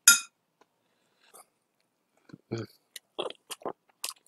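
Close-miked chewing of a mouthful of steamed siomai: a sharp bite sound right at the start, then from about two seconds in a run of short, irregular chewing and mouth sounds.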